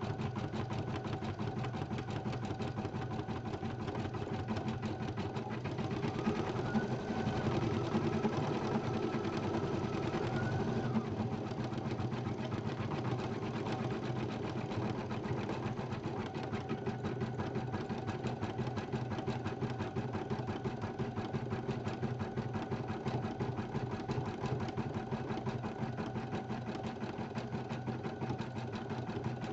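Brother BP1530L embroidery machine stitching out a design, its needle running in a fast, even rhythm as the embroidery arm moves the hoop. It gets a little louder for a few seconds, starting about six seconds in.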